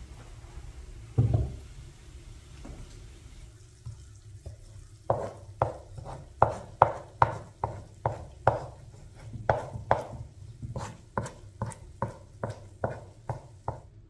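A single dull thump about a second in, then a steady run of sharp knocks, two or three a second, starting about five seconds in and stopping just before the end.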